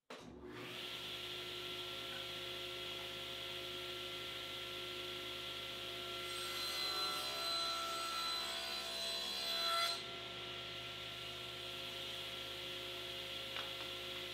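Table saw running with its blade spinning freely, a steady whine. From about six to ten seconds in it cuts through a black walnut board, which adds a higher rasping hiss, and then it runs free again.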